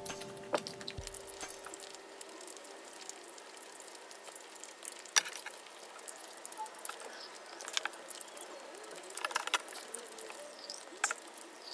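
Background music ends within the first second. Then there are faint, scattered small clicks and soft mouth noises from chewing and swallowing, with a few sharper clicks.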